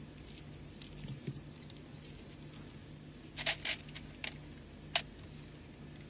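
Small beads clicking and ticking as they are handled and strung on fishing line, with a quick cluster of clicks about three and a half seconds in and single ticks after it, over a low steady hum.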